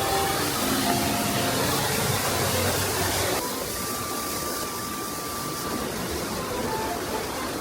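Steady rush of water, as from a waterfall or fast stream; about three seconds in it drops a little and sounds duller.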